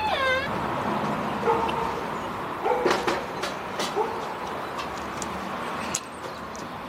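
An animal making short whining calls three times, a second or so apart, over scattered small clicks.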